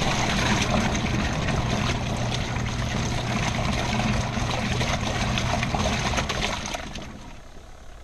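Best Choice Products twin tub washing machine's wash tub agitating a rinse load: a steady motor hum and churning water as the pulsator swirls the clothes. It dies away about seven seconds in as the pulsator pauses.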